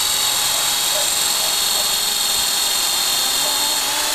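Corded Black & Decker electric drill running steadily at speed with a high whine as its bit bores a tap hole into a maple trunk.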